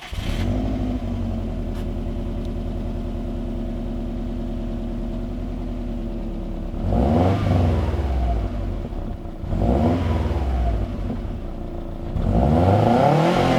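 2008 Subaru Impreza WRX STI's turbocharged flat-four engine on its completely stock exhaust, starting up and idling steadily. It is then revved three times, the last rev held longest.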